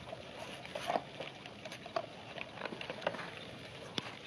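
Dogs eating dry kibble off a hard floor: irregular crunching and clicking as the pellets are picked up and chewed.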